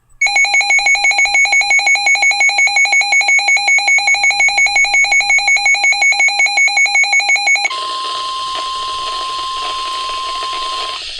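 NOAA Weather Radio emergency alert signalling for a flash flood warning. A loud electronic signal pulses rapidly, about five times a second, for roughly seven seconds. It then gives way to the steady single-pitched 1050 Hz warning alarm tone over radio hiss, which cuts off near the end.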